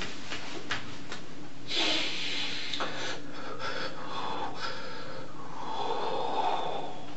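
A distressed man breathing heavily and sniffing, with a strong breath about two seconds in and another near the end. A couple of light clicks come in the first second or so.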